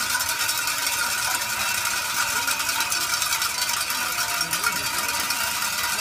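Many small handbells shaken together by a crowd, a dense, unbroken jangle of rapid overlapping rings.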